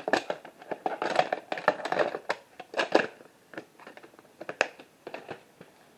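Handling noise from VHS tapes in their plastic cases being picked up and moved about: irregular rustles, clicks and light knocks, busiest in the first three seconds and sparser after.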